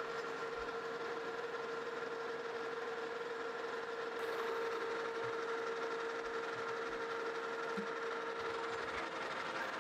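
Metal lathe running steadily while a carbide insert takes a very light finishing pass along a metal axle shaft, with a constant whine over the machine's running noise.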